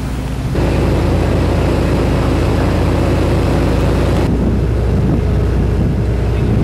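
Steady machinery hum on a warship's deck, several low tones held under a hiss. About half a second in it gets louder and hissier, and the hiss drops away about four seconds in.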